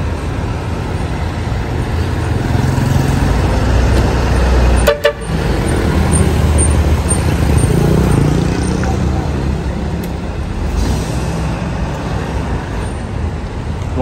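Diesel engine of a Sugeng Rahayu intercity coach bus running with a heavy, steady low rumble as the bus pulls out and turns. A brief sharp break comes about five seconds in.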